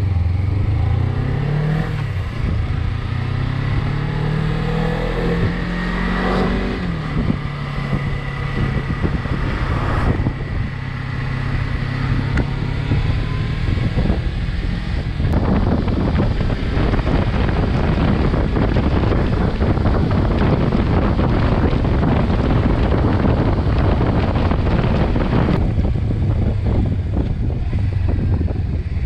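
Motorcycle engine accelerating, its pitch climbing and then dropping twice over the first seven seconds before settling into a steady run. From about halfway until near the end, loud wind and road noise covers it.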